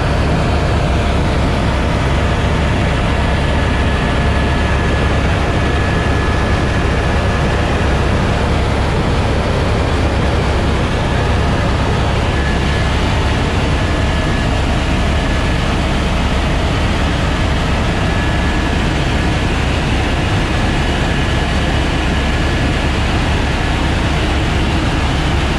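AS350 Écureuil helicopter in flight: steady rotor and turbine noise with a deep low hum and a faint thin whine above it.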